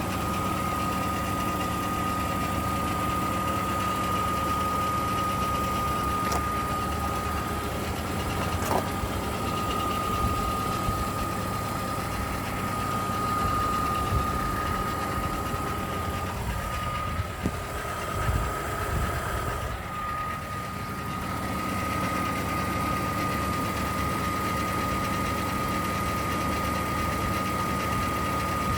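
BMW E39 530i's M54 3.0-litre inline-six idling warm, with a steady high-pitched whine over the engine hum and a few irregular knocks. The owner reports that this irregular noise comes only when the engine is warm, seems to come from the lower front right, and speeds up with revs.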